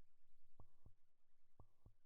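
Faint heartbeat sound effect: two lub-dub double beats, about one per second.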